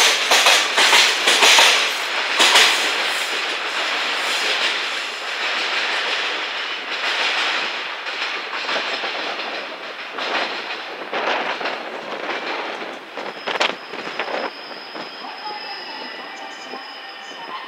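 Freight train wheels clattering over rail joints and pointwork, with sharp clicks throughout, loudest at first and slowly fading. A thin wheel squeal comes in over the last few seconds.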